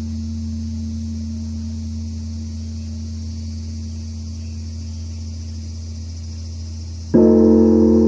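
Korean Buddhist temple bronze bell (beomjong) ringing with a deep, slowly fading hum of steady tones. Near the end it is struck again with a sudden loud deep stroke that sets it ringing afresh.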